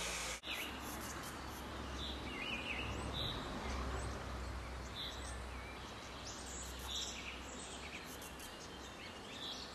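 Black redstart giving short, high call notes, one every second or two, over a low steady rumble.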